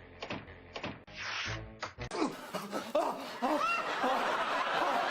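A few evenly spaced light taps, then about two seconds in a burst of laughter cuts in, rising and falling in pitch.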